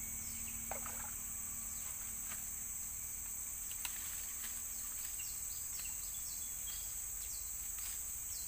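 Insects shrilling steadily at a high, even pitch, with a run of short falling chirps over it in the second half.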